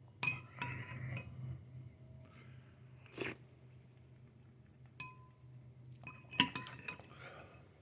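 Spoon clinking against a soup bowl while eating, with short ringing strikes. A few come in quick succession early, a single one comes about five seconds in, and a cluster comes near the end.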